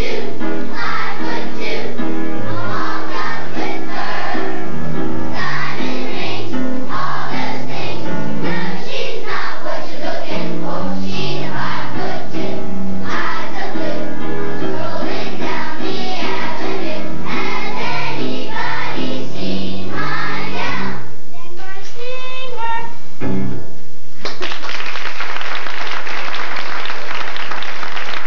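Children's choir singing a song with instrumental accompaniment. The song ends about three-quarters of the way through, and a few seconds later the audience breaks into applause.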